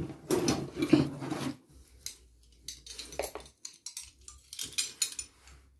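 Steel open-end spanners clinking and scraping against each other as a bundle of them is handled and pulled apart, in a series of separate metallic clicks.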